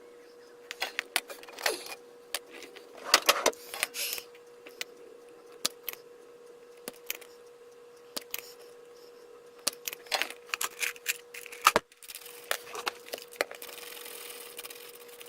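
Small hard plastic parts and tools being handled and set down while an Xbox 360 controller is worked on: irregular clicks, taps and light rattles, with a stretch of soft rubbing noise near the end. A faint steady hum runs underneath.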